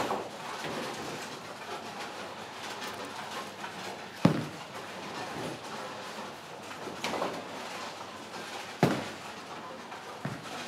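Ten-pin bowling alley: bowling balls rolling down the lanes under a steady rumble, with sharp clatters of balls striking pins, the loudest about four seconds in and another near nine seconds.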